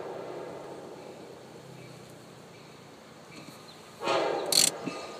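Rural outdoor ambience with faint insects buzzing. A rush of noise fades away at the start, and a sudden loud burst of noise comes about four seconds in.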